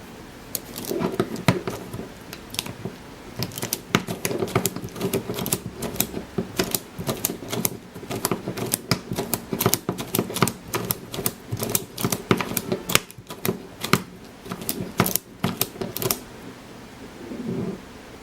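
ABS-plastic Pyraminx puzzle with magnetic pieces being twisted rapidly, giving a fast, irregular run of plastic clicks and snaps as its layers turn, which stops about sixteen seconds in.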